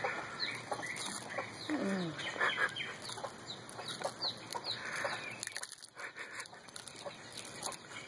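Chickens clucking off and on in short calls, with a few faint high chirps.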